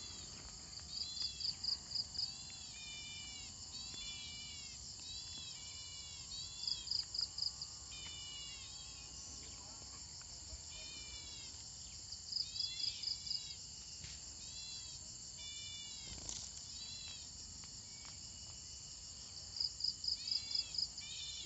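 Small birds calling in the grass: repeated short arched chirps, with four brief bursts of rapid pulsed notes that are the loudest parts. A steady high insect drone runs underneath.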